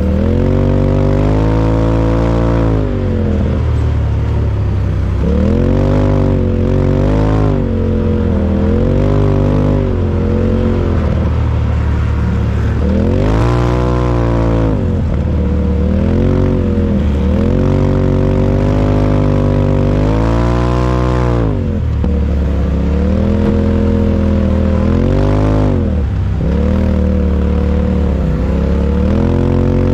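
UTV engine working under load on sand dunes, its pitch climbing and dropping every few seconds as the throttle is pressed and lifted, over a steady low drone.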